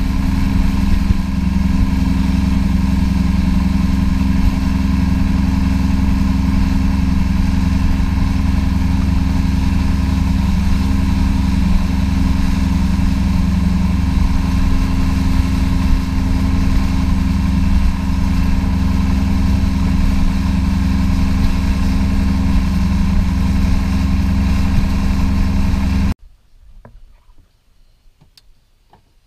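Surface-drive mud motor on a duck boat running steadily at speed, a loud even engine drone. It stops suddenly near the end.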